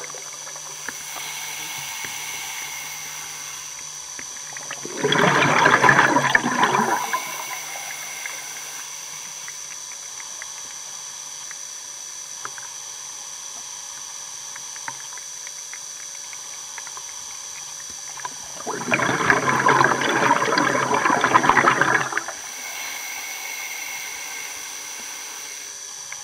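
Underwater: a steady hiss, broken twice by loud bubbling bursts of exhaled air near the microphone, each lasting about two to three seconds, some thirteen seconds apart.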